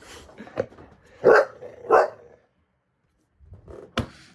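A dog barking twice, loud and short, with a few softer noises before; a sharp knock near the end.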